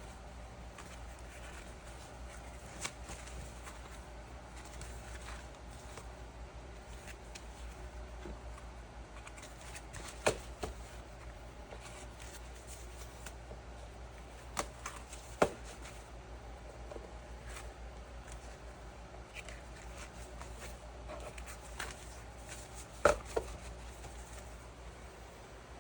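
A few sharp clicks and knocks, scattered and well apart, from handling small objects on a work surface, over a steady low hum.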